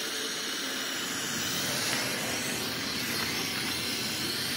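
Steady, even hissing rush from an HHO (oxyhydrogen) welding machine running.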